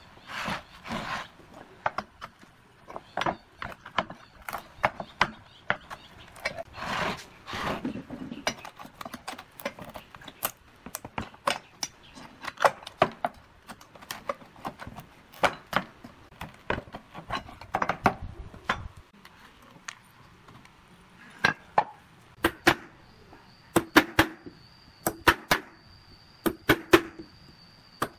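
Hammer and steel bar knocking on an old wooden cable-reel disc, many short sharp strikes with some scraping as boards and nails are pried loose. Near the end, quicker paired metallic taps as nails are worked out with pliers.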